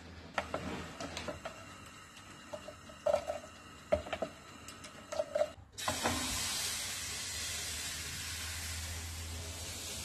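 A few light clicks and knocks of handling, then, about six seconds in, crêpe batter poured into a hot buttered frying pan sizzles with a steady hiss that slowly fades.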